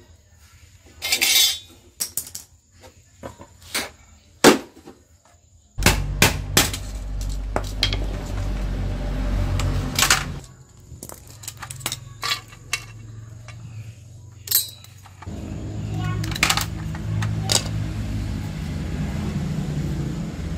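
Scattered sharp clicks, clinks and knocks of a small screwdriver, tiny screws and plastic and metal electronics parts being handled and set down on a concrete floor. A low steady hum comes in about six seconds in, drops away near ten seconds, and returns about fifteen seconds in.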